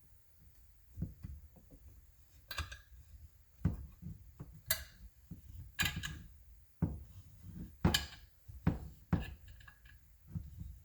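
Irregular clinks and knocks of metal tools and parts being handled and set down on a workbench, about a dozen separate hits, while a part is clamped into a chainsaw's oil tank.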